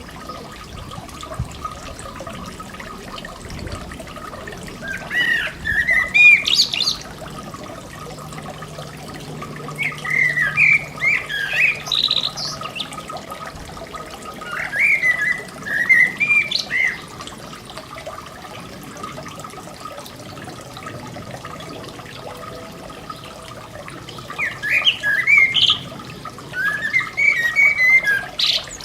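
A songbird singing five short warbling phrases, each a second or two long, with pauses of several seconds between them. A garden fountain splashes steadily underneath.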